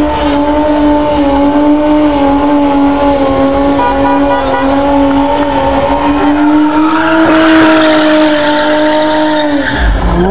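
Car engine held at high, steady revs while the rear tyres spin and squeal in a burnout. Near the end the revs drop sharply, then climb again.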